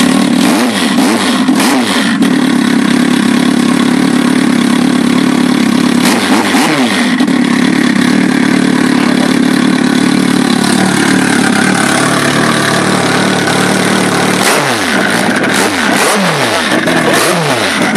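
Turbocharged 1340 cc Suzuki B-King inline-four motorcycle engine idling steadily, blipped about a second in and again a few seconds later, then revved several times in quick succession near the end.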